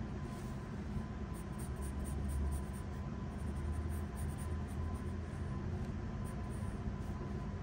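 Faber-Castell graphite pencil scratching across sketch paper in quick repeated shading strokes, over a steady low background hum.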